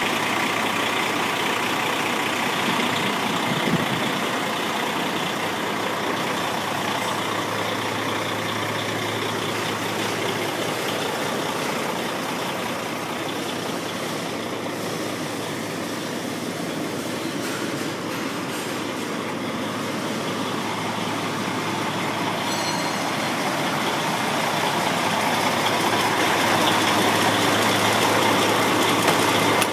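Freightliner Columbia tractor truck's diesel engine running steadily with a low hum, growing louder over the last several seconds.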